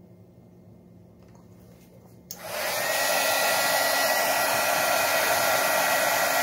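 Heat gun switched on a little over two seconds in, its fan blowing steadily with a faint whine, reheating a BGA chip on a circuit board to reflow its solder.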